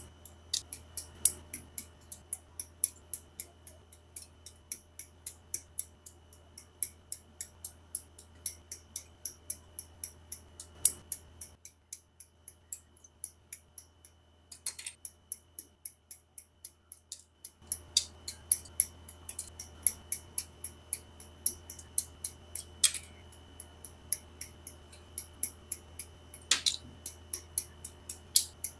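Quick run of sharp plastic clicks, about three a second with a few louder snaps among them, from hobby tools working the parts of a plastic model kit. The clicks stop for several seconds in the middle, then carry on.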